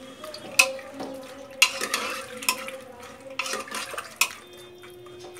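Spoon stirring soaked chickpeas with chopped vegetables and water in a metal pressure cooker, scraping through the wet mix and clinking sharply against the pot's side several times, leaving a faint ring from the pot.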